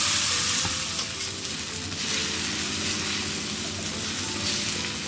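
Small portions of vegetable batter sizzling in hot oil on a seasoned cast-iron tawa: a steady frying hiss, a little louder in the first second.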